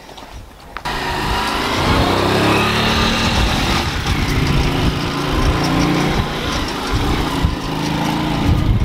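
Motorcycle engine running close by, starting suddenly about a second in and staying loud with a wavering pitch.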